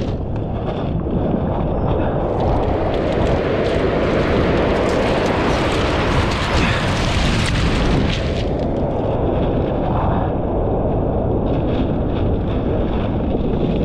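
Sea surf: a steady low rumble, with a big wave breaking and rushing up the shore for several seconds starting about two seconds in, then easing off. Wind buffets the microphone throughout.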